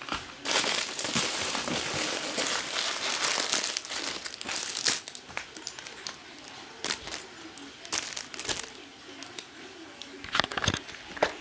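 Clear plastic packaging bags crinkling as they are handled. The crinkling is dense for the first few seconds, breaks into scattered crackles and clicks, and picks up again near the end.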